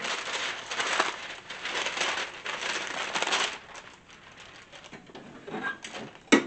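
A large sheet of paper crinkling and rustling as it is handled and spread over the shirt for about three and a half seconds. Near the end a single sharp clack comes as the heat press is pulled shut.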